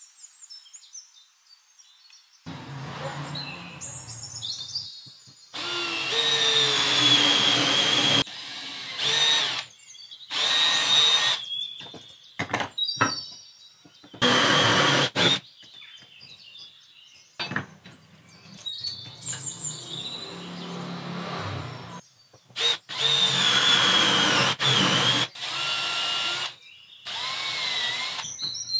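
Cordless drill boring concealed-hinge cup holes through a drilling jig into particle board. It runs in repeated bursts of one to four seconds with short pauses between, a steady high motor whine over the cutting noise.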